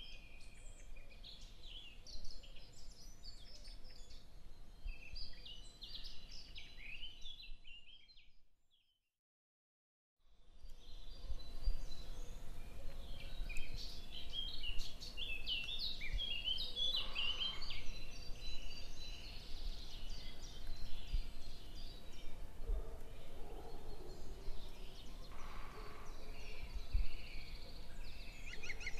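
Small birds chirping and twittering, many short calls overlapping. The sound drops out completely for about two seconds about a third of the way in, and a quick trill comes in near the end.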